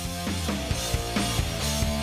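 Background music with drums keeping a steady beat over a bass line.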